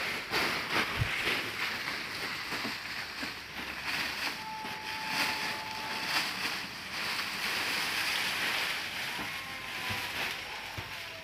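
Rustling and crackling of dried leaves and plastic sacks being handled as a cricket-rearing box is emptied, with a faint thin steady tone for about two seconds near the middle.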